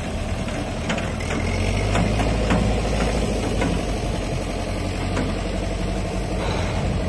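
Mahindra 595 DI tractor's diesel engine running at low speed as it tows a tipping trolley, a little louder in the middle, with a few scattered light knocks.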